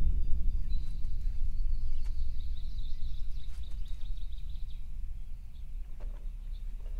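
Outdoor ambience: a steady low rumble with birds chirping high above it, the chirping thinning out after the first few seconds.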